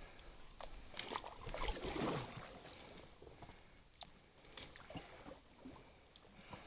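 Small folding plywood boat pushing through reeds and shallow water: reeds rustling and scraping along the hull, with irregular sharp clicks and knocks.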